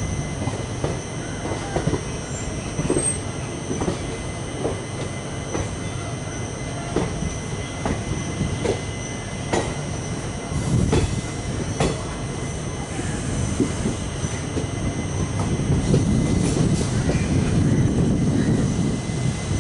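Train running slowly past on the rails: a continuous low rumble, with wheels clicking over rail joints and points about once a second and a faint steady high whine above. The rumble grows louder near the end.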